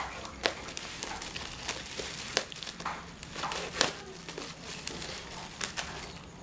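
Black plastic parcel wrapping crinkling and crackling as hands unwrap it, with a few sharper crackles now and then.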